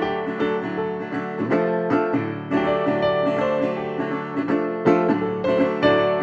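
Background music played on a plucked string instrument, a steady run of picked notes that ring and fade one after another.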